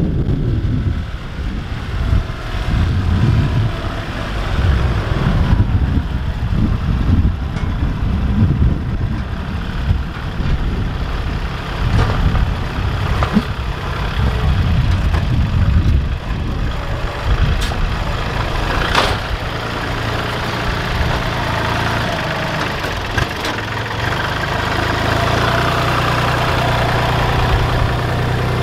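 Kubota compact tractor's diesel engine running as the tractor drives, with a few sharp knocks along the way. The engine note settles into a steadier drone in the last several seconds.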